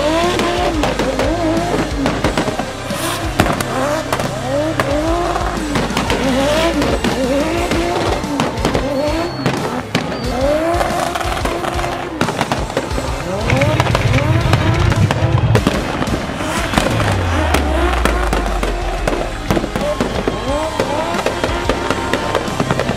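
A drift car's engine revving up and down over and over as it slides, with tyre squeal. It is mixed with background music that has a deep bass, which sweeps downward a little after halfway.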